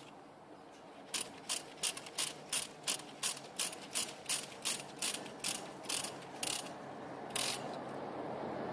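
Cable tie (zip tie) being pulled tight, its strap ratcheting through the locking pawl in a run of sharp clicks, about three a second for some five seconds, then one last click near the end.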